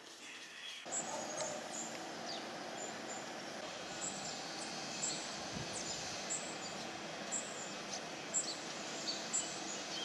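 Outdoor ambience beginning about a second in: a steady hiss of background noise with birds chirping, short high chirps and a few quick falling calls coming every second or so.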